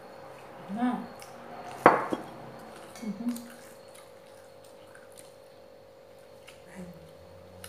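A plate is set down on the table with a single sharp clatter and brief ringing about two seconds in. Quieter clinks of dishes follow.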